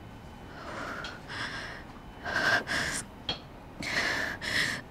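A young woman breathing hard and shakily in distress: three pairs of quick in-and-out breaths, louder after the first pair.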